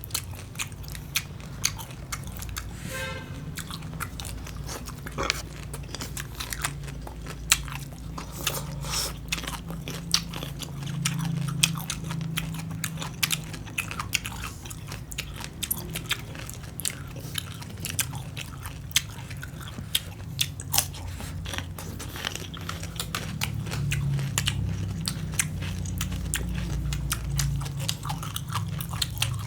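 Close-up chewing and crunching of green papaya salad with cucumber: irregular crisp crunches and biting clicks from shredded raw papaya and cucumber, over a steady low hum.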